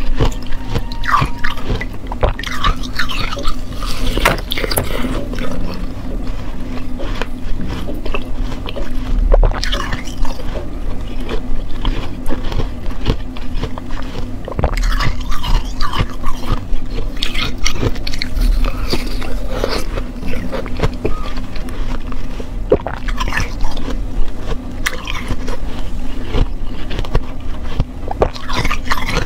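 Ice being bitten and chewed close to a clip-on microphone: irregular sharp crunches with wet, slushy chewing between them, over a steady low hum.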